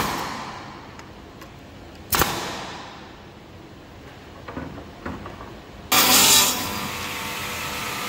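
Pneumatic nailer firing twice into hardwood bed slats, each shot a sharp crack with a short tail, about two seconds apart. About six seconds in, a power saw starts up, loudest for its first half second, then keeps running steadily.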